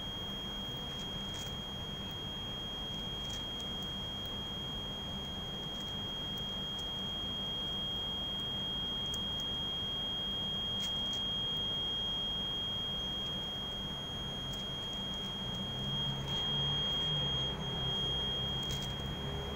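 A steady high-pitched tone over a low hum, with a few faint scattered clicks.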